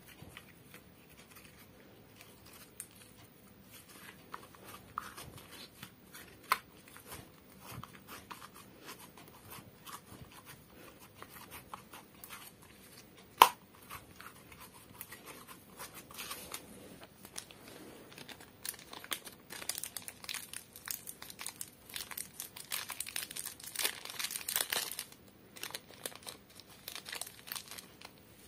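Glossy slime being stretched, kneaded and pressed by hand, giving irregular sticky crackles and pops. There is a single sharp snap about halfway through and a denser run of crackling in the last third.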